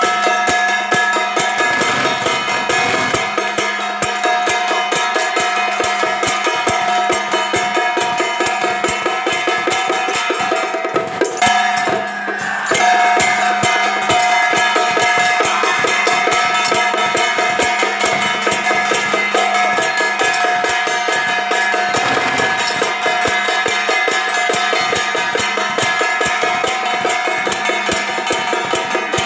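Processional drum-and-gong band of a Song Jiang troupe playing: fast, continuous drum beating under steady ringing metallic tones, with a brief lull about eleven seconds in.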